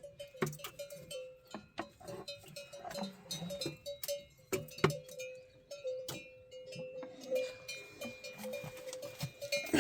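Livestock neck bells clanking with irregular, uneven strikes and a lingering ring.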